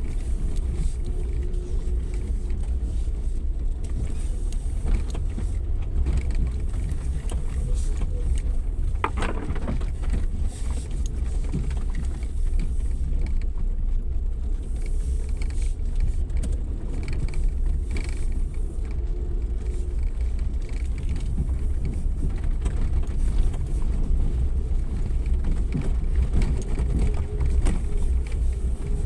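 Suzuki Jimny 4x4 driving off-road: a steady low engine and drivetrain rumble with running noise over rough ground.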